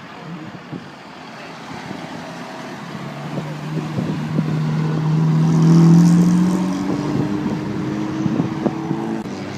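A classic car's engine passing by: its note builds as the car approaches, is loudest about six seconds in, then fades as it moves away.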